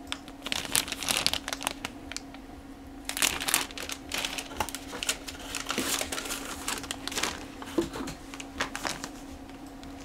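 Clear plastic bags holding plastic model-kit sprues crinkling as they are handled, in irregular clusters of crackles with short pauses between them.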